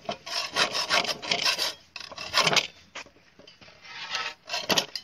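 Quick rasping strokes of hand-tool metalwork on a steel nail held in pincers, taking its head off, in short runs that thin out after about three seconds, with one last burst near the end.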